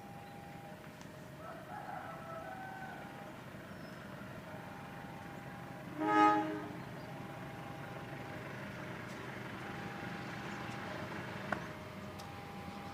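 Low steady rumble of rail traffic with faint on-and-off hums. About six seconds in comes one short, loud toot of a diesel locomotive's horn.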